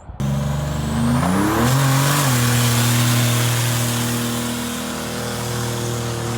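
Car engine starting suddenly, rising in pitch about a second in, then holding a steady note, with a faint high whine climbing at the start.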